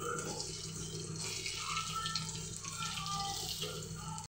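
Arbi leaf fritters sizzling and crackling as they fry in hot oil, stirred with a metal spoon. The sound cuts off suddenly near the end.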